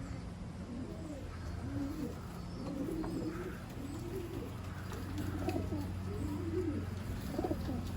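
Racing pigeons cooing, several low warbling coos overlapping and repeating, over a steady low hum.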